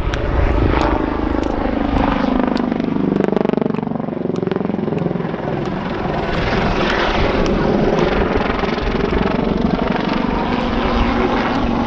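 Westland Lynx helicopter flying aerobatics: the rapid beat of its main rotor over the drone of its engines, the pitch sliding up and down a few seconds in as it rolls through the manoeuvre.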